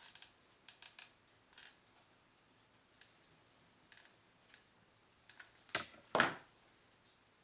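Hot glue gun being handled: a few faint clicks in the first two seconds, then two sharp knocks about half a second apart as it is set down on a wooden tabletop.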